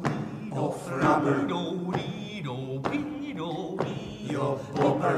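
A group of voices chanting a line of a mock folk song in short phrases over a steady low drone-like accompaniment.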